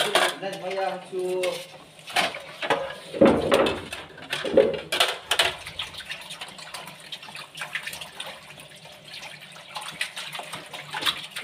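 A meal at a table: clinks and knocks of steel bowls and plates along with eating sounds, with short stretches of talk, mostly in the first couple of seconds.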